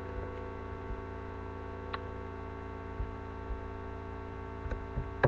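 Steady electrical hum picked up by a webcam microphone, with a few scattered faint clicks, the loudest near the end.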